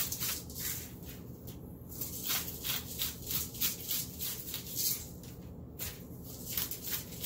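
Hand-held salt grinder grinding pink Himalayan salt: quick crunching rasps, about four a second, with two brief pauses.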